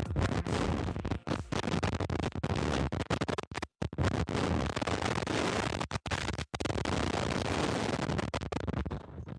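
Wind buffeting the microphone of a body-mounted camera on a BASE jumper dropping toward the canyon floor: a rough, loud rushing that cuts out abruptly a few times.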